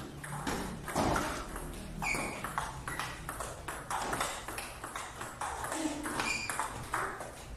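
Table tennis ball clicking back and forth in a fast rally, bouncing on the table and striking the rubber-faced paddles, several hits a second.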